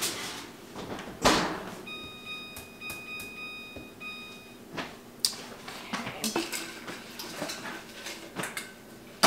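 Kitchen handling sounds: a sharp knock about a second in, then a steady electronic appliance beep held for about three seconds, followed by scattered clatter and rustling of things being moved about.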